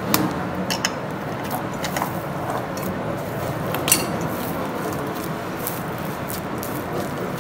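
Soft, sticky bread dough being kneaded by hand in a plastic bowl: squishing and pressing, with a few light clicks and knocks against the bowl, the sharpest about four seconds in.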